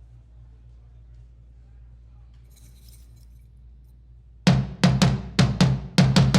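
A low steady hum, then about four and a half seconds in a drum kit comes in loud with a fast run of kick and snare hits.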